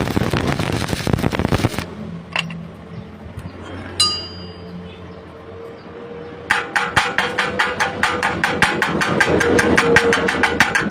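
Welding arc crackling for about two seconds, then cutting off; a single ringing metal tap about four seconds in; then rapid hammering on metal, about seven blows a second, like a chipping hammer knocking slag off a fresh weld.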